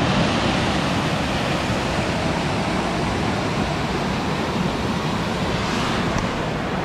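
Small woodland waterfall cascading over rocks: a steady, even rush of water that cuts in suddenly and holds at one level.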